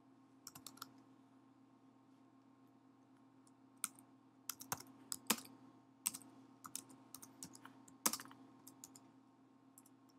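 Computer keyboard typing: a few keystrokes about half a second in, then a run of quick keystrokes from about four seconds in to nearly nine. A faint, steady low hum sits underneath.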